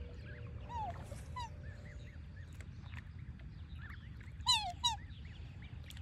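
Black swans calling: a few short, high, musical calls that rise and fall, the two loudest close together about four and a half seconds in, with faint softer peeps between them. The calls come as an agitated adult guards its cygnets.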